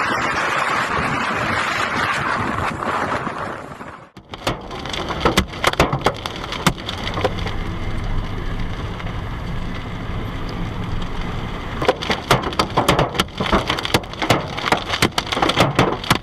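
Storm sounds: a steady rush of wind and water, then, after a cut about four seconds in, heavy rain with many sharp, irregular hits pelting a surface over a low steady hum.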